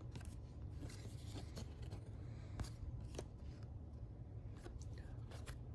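Baseball trading cards being handled and flipped through, with soft scattered clicks and rustles, over a low steady hum.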